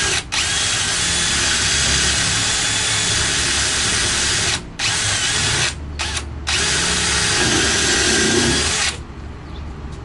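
Power drill running on the birch plywood cabinet side while holes are drilled and screws fastened. It runs in long runs with a few brief stops, then cuts off about nine seconds in.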